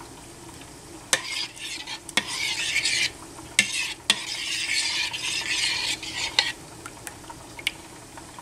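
Metal spoon stirring wing sauce of hot sauce and melted butter in a ceramic bowl. The spoon clinks against the bowl a few times, and the liquid swishes in two spells of a couple of seconds each.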